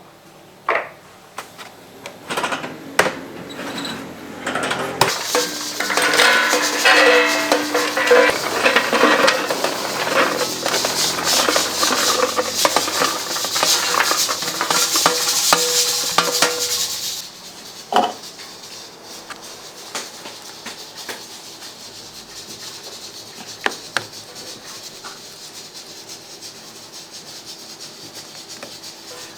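Cooking at a bungeoppang stall: clicks and knocks of metal against metal, then a loud noisy stretch of about twelve seconds that cuts off suddenly, followed by a quieter steady background with occasional clicks.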